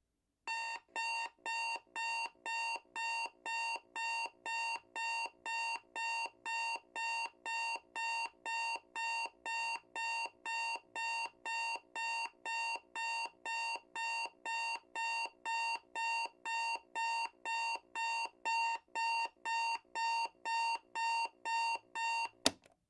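Electronic alarm-clock beeping: an evenly repeating high beep, about two a second, signalling that the countdown timer has run out. It ends with a sharp click.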